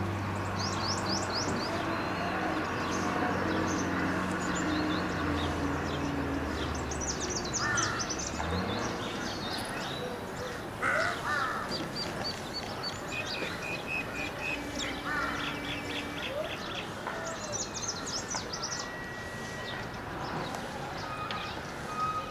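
Crows cawing several times, short harsh calls spaced a few seconds apart, while small birds chirp high and quickly many times over. A low steady hum runs underneath for the first eight seconds or so and then stops.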